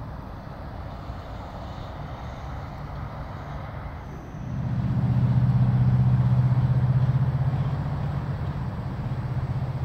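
A large engine passing nearby: a low hum that swells about four and a half seconds in, is loudest a second or two later, then slowly fades, over a steady low rumble.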